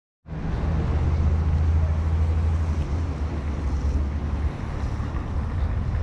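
Strong wind buffeting the microphone: a loud, low rumble that wavers with the gusts.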